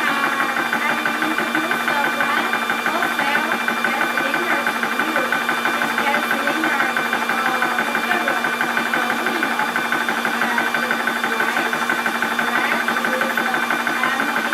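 Portable 12 V high-pressure PCP air compressor running steadily under load while it fills a small air cylinder towards 20 MPa, a rapid even mechanical rattle over a constant hum from its motor and cooling fan.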